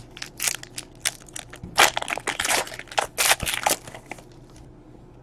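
Wrapper of a trading-card pack crinkling and crackling as it is handled and pulled open by hand. The crackles come in a rapid, irregular run for about four seconds, then stop.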